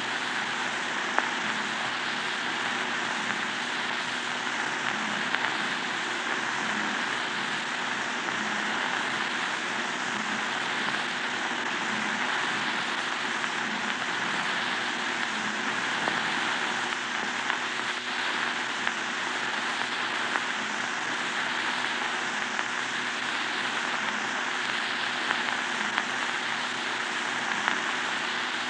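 Surface noise of a 1929 Vitaphone sound-on-disc record playing a stretch with no recorded sound: a steady hiss with a faint low hum and a few sharp clicks.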